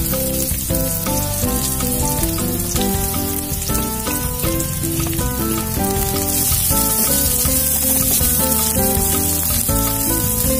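Chopped onions and minced garlic sizzling in hot oil in a wok, the sizzle growing stronger about halfway through. Background music with a steady melody plays over it.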